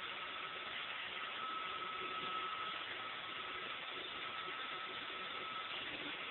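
Roomba robot vacuum running: a steady whirring hiss with a constant high whine.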